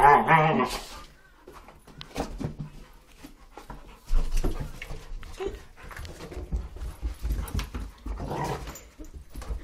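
Two Doberman pinschers play-fighting, one giving a loud, wavering vocal call in the first second. Scuffling and low thumps follow from about four seconds in, with a second, shorter call near the end.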